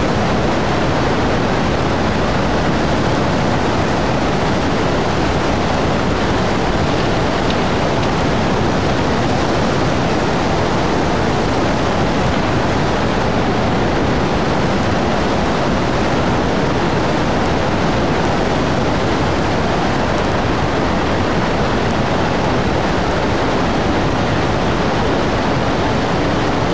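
Loud, steady rushing of tsunami floodwater surging through a flooded bay.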